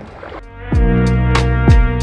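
Background music starts about half a second in: held chords with a beat of drum hits.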